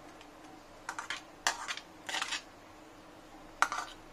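Chopped onion and tomato pushed off a plastic plate into a glass bowl of Kurkure: four short bursts of clattering and tapping as the pieces drop and the plate knocks on the bowl.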